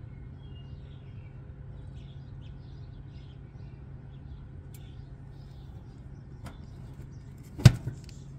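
A steady low hum with faint bird chirps, then near the end one loud metallic bang with a short ring, the stainless steel door of a gas grill cabinet being shut.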